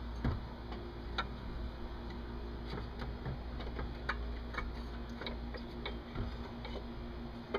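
Scattered light metallic clicks and taps as a replacement water pump is fitted to the engine and its bolts are started by hand, over a steady low hum.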